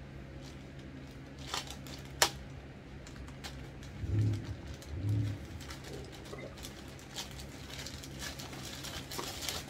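Plastic poly mailer bag being pulled open, with a sharp snap about two seconds in. Two short, low hums from a man come near the middle, then the plastic crinkles more and more toward the end.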